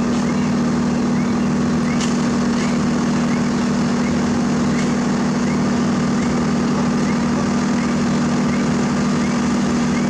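Diesel engines of an asphalt paver and a dump truck running steadily as the truck's bed is raised to tip asphalt mix into the paver's hopper. Faint short chirps repeat about once or twice a second over the drone.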